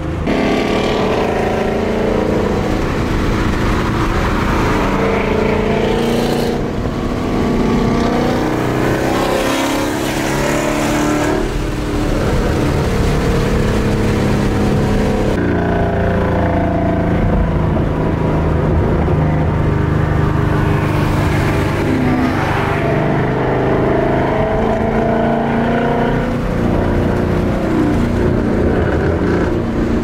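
Ford Mustang's engine and exhaust heard from inside the cabin, running loud under load at highway speed, its pitch rising and falling several times over steady road noise.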